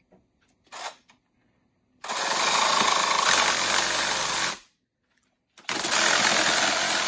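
Cordless reciprocating saw cutting through a rolled-up roll of wire mesh. It runs for about two and a half seconds, stops for about a second, then starts cutting again.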